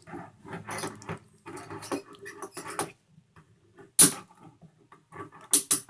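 Metal handcuffs being handled and clicked, with rattling and rustling and then one sharp loud click about four seconds in. A quick run of clicks follows near the end.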